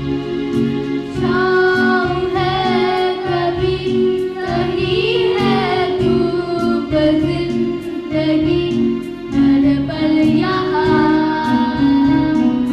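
Children singing a Hindi song together over instrumental accompaniment with a steady beat.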